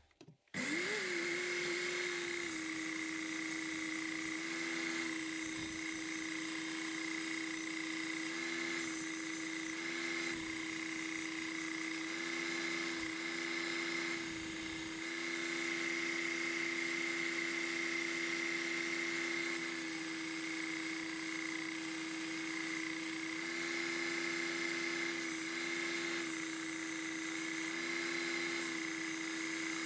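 Work Sharp Ken Onion Elite belt sharpener switched on about half a second in, its motor whining briefly up to speed and then running steadily with a high whine. A kitchen knife's heel is held against the abrasive belt to grind the heel down, and a lower note drops in and out every few seconds.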